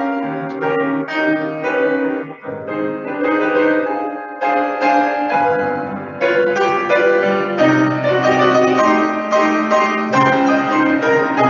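Solo grand piano playing a chord-based piece, full sustained chords with a melody on top, new chords struck every second or two.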